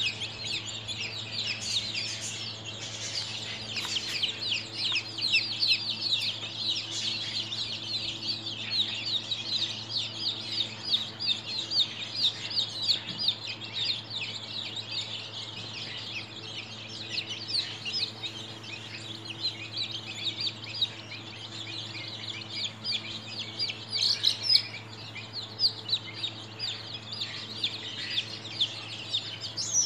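A flock of 13-day-old chicks peeping continuously, many short, high, downward-sliding cheeps overlapping. A steady low hum runs beneath.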